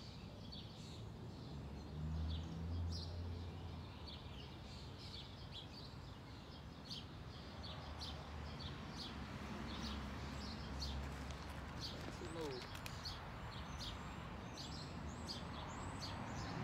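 Small birds chirping over and over in the background, short high chirps a few times a second. A low hum swells twice, a couple of seconds in and again around the middle.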